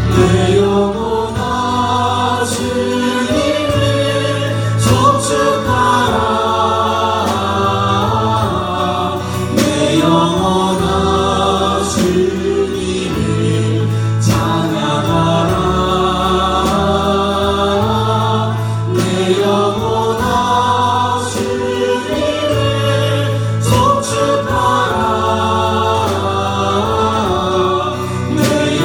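A group of voices singing a Christian praise song together over instrumental accompaniment with a steady beat.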